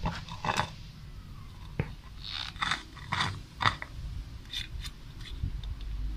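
Hands handling a metal can, pulling off its plastic cap and wiping it with a cloth: a string of irregular scrapes, clicks and rustles.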